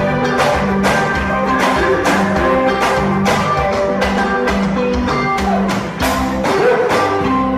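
Music with a steady percussive beat under held instrument notes, with guitar among the instruments.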